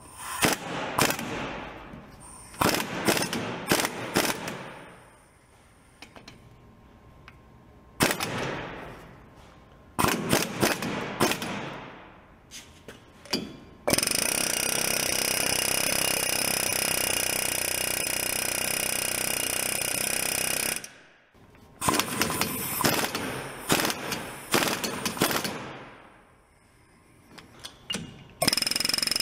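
Impact wrench hammering in several bursts, each fading off after it lets go, with a steady air-tool whir for about seven seconds in the middle.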